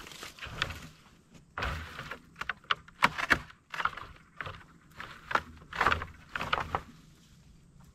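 A person moving about by hand and foot: a string of irregular rustles, scrapes and light knocks, like gear being handled and steps through dry grass, falling quiet about a second before the end.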